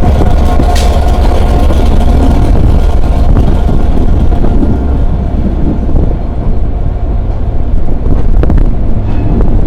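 Class 67 diesel-hauled train running by as a heavy, steady low rumble, with wind buffeting the microphone.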